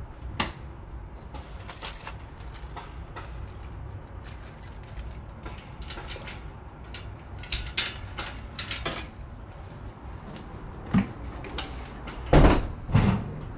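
Keys jangling with scattered small clicks of handling, and two loud thumps near the end.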